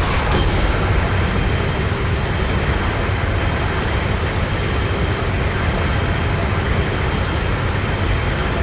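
Film sound effect: a loud, steady rumbling noise, heavy in the bass, that holds unchanged without any pitched tones.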